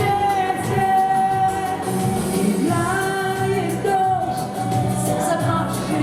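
Pop-chanson song music with a held, sliding melody line over a steady rhythmic accompaniment.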